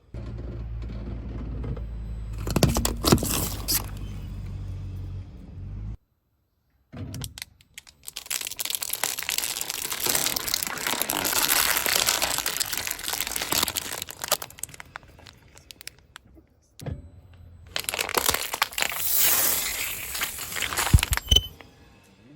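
A car's tyres rolling over and crushing brittle objects: sharp cracks over a low engine hum, then long stretches of dense crackling and crunching, broken up by abrupt cuts.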